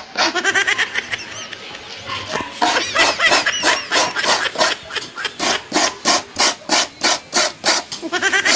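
Fresh coconut meat grated by hand: a half coconut scraped back and forth across a grater in a quick, even run of scraping strokes, several a second.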